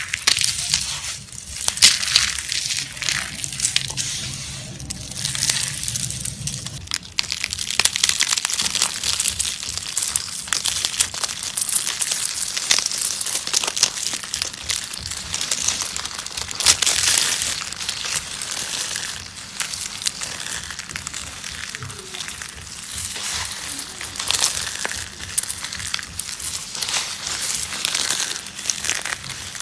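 Dry soap being crushed: a dense, continuous run of crunching and crackling as the soap breaks and crumbles.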